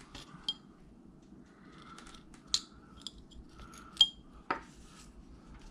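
Carving knife shaving small cuts from a wooden carving: faint scraping strokes with a few sharp clicks of the blade, some with a short high ring.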